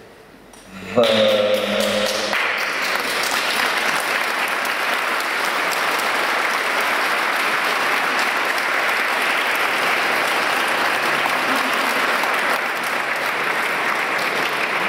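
An audience applauding steadily for about thirteen seconds, starting about a second in. A short, loud pitched sound comes at the very start of the applause.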